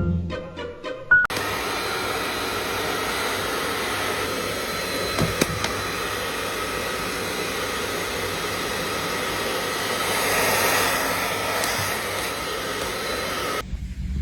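A few plucked music notes, then a steady rushing noise like a small motor blowing air, with a faint whine, which starts suddenly and cuts off suddenly near the end.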